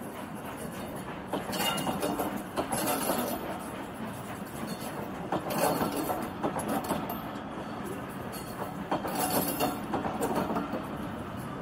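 Train of passenger coaches rolling past, the wheels clattering over the rail joints, with a louder burst of wheel noise every few seconds as the bogies go by.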